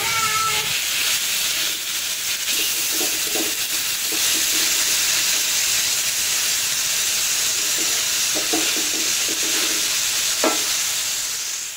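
Chili sambal with mackerel sizzling steadily in a wok while a spatula stirs it, with a few knocks and scrapes of the spatula against the pan.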